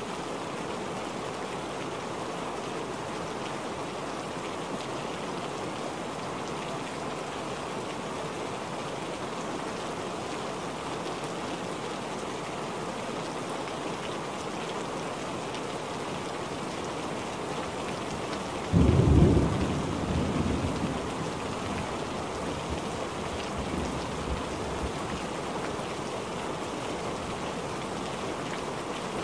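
Steady rain falling, with a sudden loud thunderclap about two-thirds of the way through that rumbles away over several seconds.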